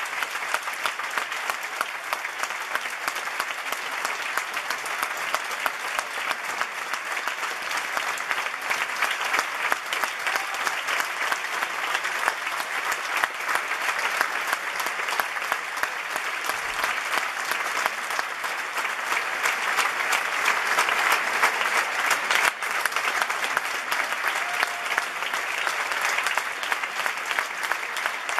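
Large audience applauding steadily, a dense, unbroken clapping that grows a little louder about two-thirds of the way through.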